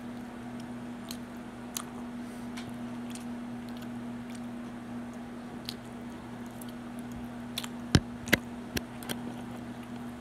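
Close-up wet chewing of food eaten off a fork, with small clicks and a few sharp, louder clicks near the end, over a steady low hum.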